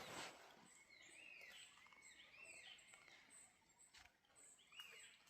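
Faint birdsong: short whistled notes that rise and fall, repeated again and again, with a soft rustle at the start and a light click about four seconds in.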